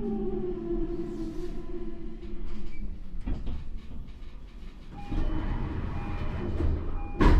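Toei 10-300 series train's Mitsubishi IGBT inverter and traction motors whining in a stack of tones that falls in pitch as the train brakes, then fades under rumbling running noise. Steady higher tones come in about five seconds in, and a sharp thump sounds near the end.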